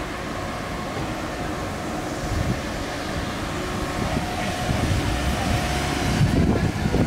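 A train running past, with a steady rumble and a faint steady whine that grow louder over the last few seconds.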